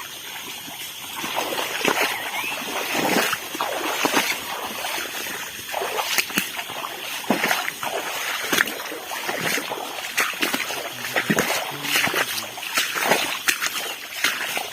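Repeated splashing and sloshing in shallow floodwater, uneven strokes about once a second.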